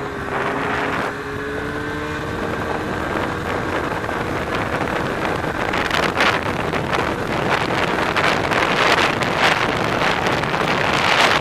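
Snowmobile engine running at a steady pitch under rushing wind on the microphone. After about four seconds the wind noise swells into loud gusts that cover the engine.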